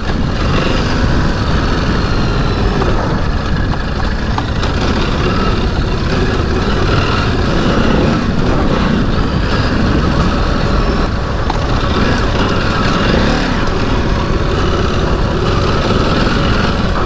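Ducati DesertX Rally's 937 cc L-twin engine running under throttle on a muddy off-road trail, its pitch rising and falling as the rider works through a rut.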